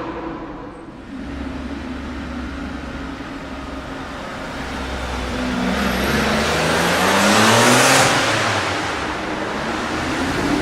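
Supercar engine accelerating past, its note rising in pitch and swelling to a loud peak about eight seconds in as it goes by, then easing off.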